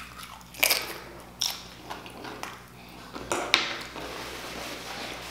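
Close-miked crunching of a meat-loaded tortilla chip being bitten and chewed: a few sharp crunches about a second in and again around three and a half seconds, then steadier chewing.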